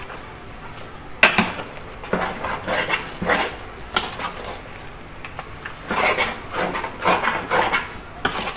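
A metal spoon clinking and scraping against a cooking pot while soup is stirred, in scattered knocks that come in short clusters.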